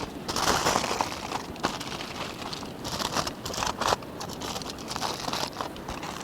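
Irregular crinkling and rustling, with many small crackles, as of something being crumpled or handled.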